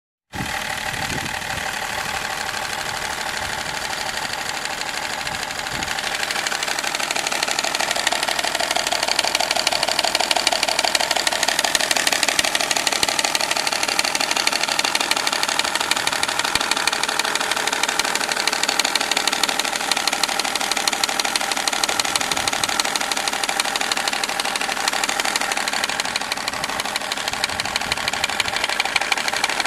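BMW E39 530d straight-six diesel idling with a fast, even ticking rattle from the front of the engine. The owner can't tell whether the noise is the timing chain or a pulley in the belt drive.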